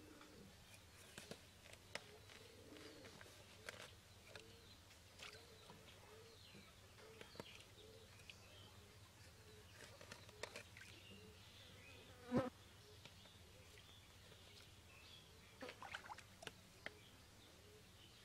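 Faint, scattered knocks and scrapes of a small hand hoe chopping into wet, root-filled mud, with one sharp thump about twelve seconds in and a quick cluster of knocks near the end.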